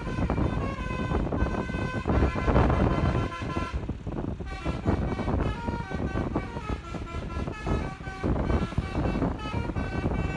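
A bus's telolet musical air horn plays a tune, a run of held notes stepping from pitch to pitch with a short break about four seconds in, over the rumble of the bus's engine and road noise.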